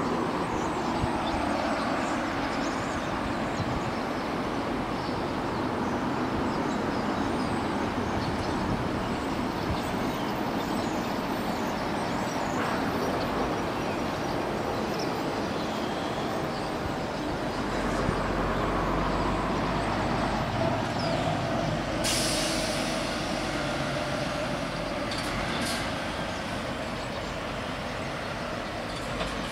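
Level-crossing warning bells ringing steadily while the crossing is closed, over the sound of road vehicles waiting and passing. About two-thirds of the way through there is a sudden hiss of air.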